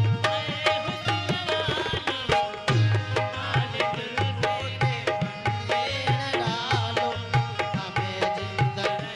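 Live qawwali-style ensemble music: harmonium playing held chords and a melody over a fast, steady hand-drum rhythm with deep bass strokes.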